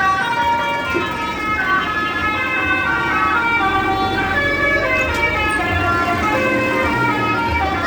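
Bus telolet horn, a multi-tone musical air horn, playing a melody of held notes that step from pitch to pitch, with a low rumble underneath.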